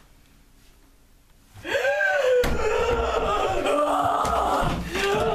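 After a second and a half of near silence, a person lets out a long, high-pitched scream. It starts with a rise and fall in pitch and is then held for about four seconds.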